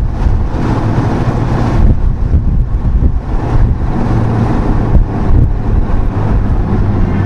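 Honda NSX's V6 engine running at low, steady revs, heard from inside the cabin while the car rolls along slowly.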